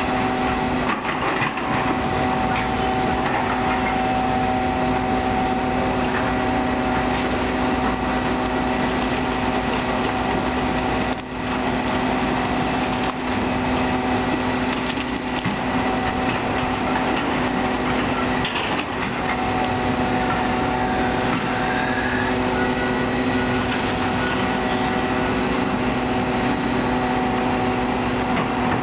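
A hydraulic excavator's diesel engine running steadily as it tears into a fire-damaged wood-frame building, with wood cracking and splintering now and then.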